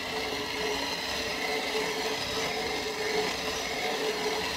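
Coffee grinder running steadily, grinding freshly roasted coffee beans.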